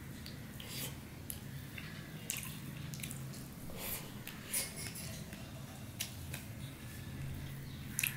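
Eating sounds: scattered short wet squishes, clicks and smacks from fingers mixing plain pulao rice on a plate and from chewing, over a steady low hum.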